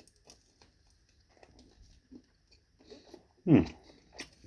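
Faint chewing and mouth clicks of a person eating pizza, with one short voiced sound that falls in pitch about three and a half seconds in.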